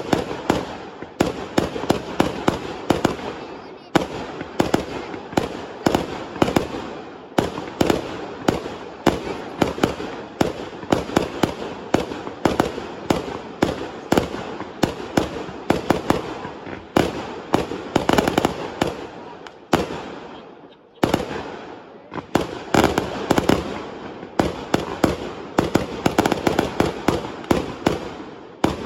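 Fireworks going off in a rapid, continuous barrage of bangs and crackles. There is a brief lull about two-thirds of the way through, then it picks up again.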